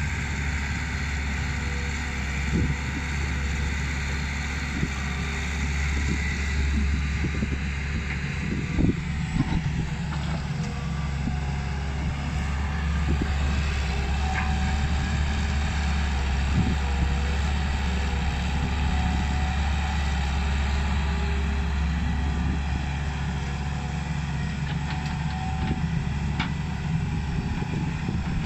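Heavy diesel machinery running steadily: first a dump truck driving, then a Hitachi EX120 excavator's engine working as it digs and swings its bucket, with a few knocks now and then.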